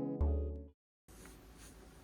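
Background music with keyboard notes that die away within the first second, then a brief dead silence and faint room hiss.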